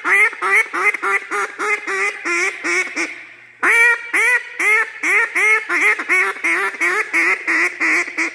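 Buck Gardner duck call blown in a comeback call: two long runs of rapid quacks, about four a second, each run starting loud and tailing off, with a short break a little past three seconds in.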